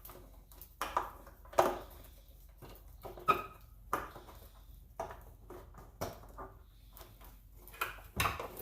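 Irregular sharp plastic clicks and knocks, about one a second, from factory bulb sockets and their wiring harness being handled and fitted into a tail light housing.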